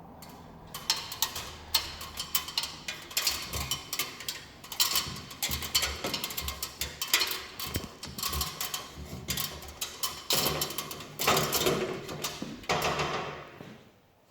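Background music with a busy percussive beat of woodblock-like clicks and knocks.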